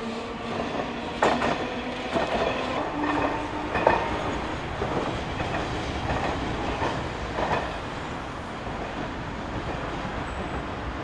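Tosaden streetcar running on street track, its wheels clacking over rail joints in an uneven run of knocks that is loudest about four seconds in and dies away after about eight seconds, over steady road traffic.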